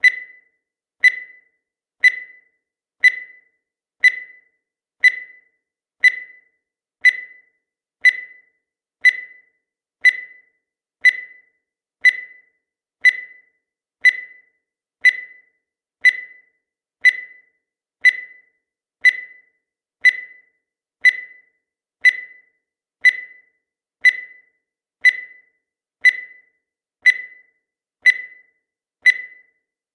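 Countdown timer sound effect: a short, high beep once every second, each fading quickly, at a steady pace.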